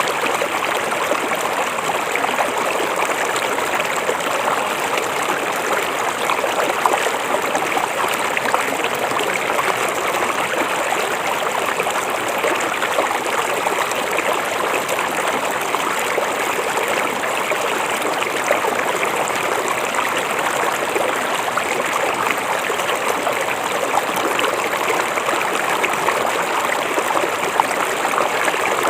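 River water flowing and rushing steadily over rocks, an even unbroken rush.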